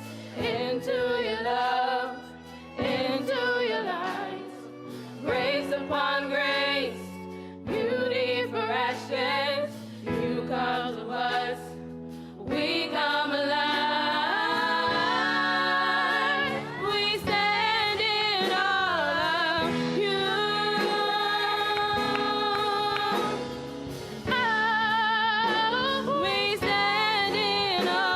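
Gospel singing with instrumental accompaniment: voices sing phrases with vibrato over held chords, with short gaps between phrases in the first half and a long unbroken passage after that.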